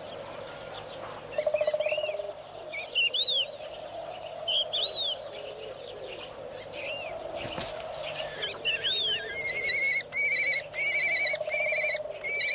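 Short arching bird chirps at intervals, then from about ten seconds in rapid runs of repeated shrill calls from common kestrels at the nest, with the female arriving among her downy chicks.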